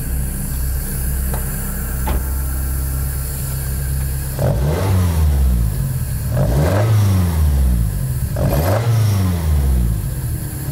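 Toyota 3S two-litre four-cylinder with individual throttle bodies, swapped into an AE86, idling steadily. From about four seconds in it is revved by hand at the throttle three times, about two seconds apart, each rev climbing briefly and dropping back to idle.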